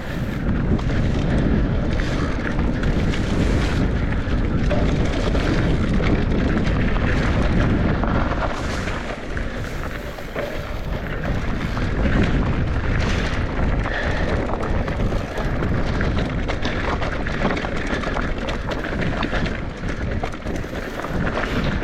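Mountain bike rolling fast down a dirt singletrack, heard through an action-camera microphone: heavy wind rumble on the mic over tyre noise on dirt and loose rock, with frequent knocks and rattles from the bike over bumps.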